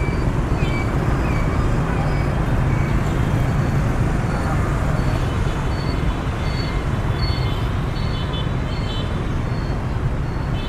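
Rush-hour city traffic: many motorbike and car engines running and tyres on the road in a steady, loud rumble. Short high beeps sound over it, a few early on and more about six to nine seconds in.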